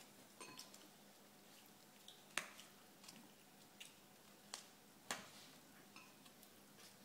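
Near silence with a faint steady hum and a scattering of small sharp clicks and taps, the sharpest about two and a half seconds in and another about five seconds in.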